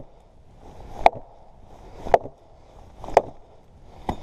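Axe striking a piece of wood to split it: four sharp chops, about one a second.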